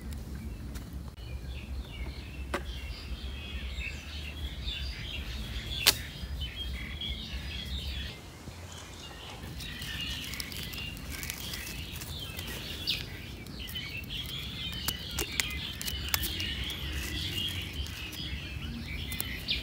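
A dense chorus of many small birds chirping and twittering, with a few sharp clicks, the loudest about six seconds in. A low rumble underneath stops about eight seconds in.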